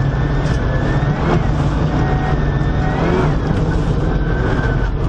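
Subaru Impreza WRX STI R4's turbocharged flat-four engine running hard at high revs, heard from inside the cabin, over a dense rumble from the car on the road. The engine note rises briefly twice, about a second in and again around three seconds in.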